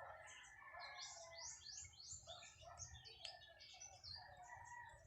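Faint birdsong: a quick run of short, high chirps about a second in, with other scattered chirps around it.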